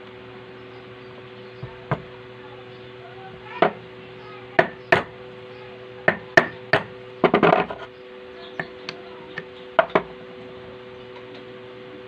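Hand tools knocking and clicking on the metal parts of a Singer edger sewing machine being reassembled after a bearing replacement: about a dozen irregular taps, with a quick rattling run of them about seven seconds in, over a steady hum.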